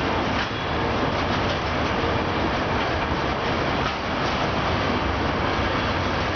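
SPENO rail-grinding train's wagons rolling past, their wheels rumbling steadily on the rails with faint clacks as the train pulls out.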